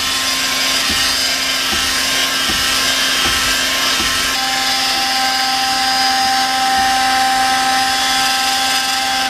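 Electric heat gun running steadily, fan and hot-air blast aimed at a masking stencil to soften it so it peels off the paint. A steady whine joins about halfway through, and the gun shuts off abruptly at the end.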